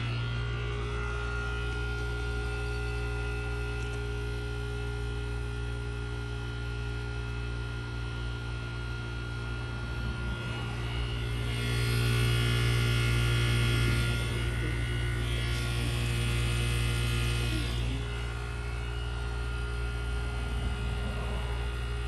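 1989 Carrier TECH2000 heat pump outdoor unit running, its original Tecumseh hermetic compressor giving a steady low electrical hum with several fainter steady tones above it. The sound grows louder with added hiss for a couple of seconds about twelve seconds in and again near sixteen seconds.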